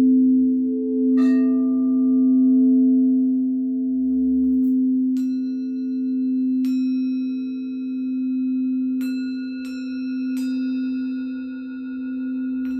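A singing bowl rings a steady low drone with a slow, wavering swell. Over it, higher ringing tones are struck about six times, each left to ring on and fade.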